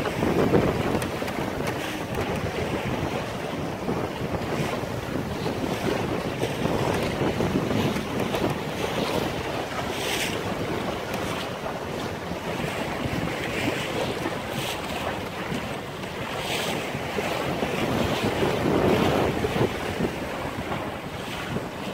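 Wind buffeting the microphone over the steady rush and slap of choppy water against the hull of a small sailboat, a 19-foot O'Day Mariner, with a few sharper splashes of spray at the bow.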